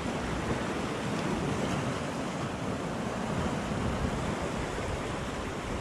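Sea surf washing and breaking against a rocky shore: a steady rushing noise.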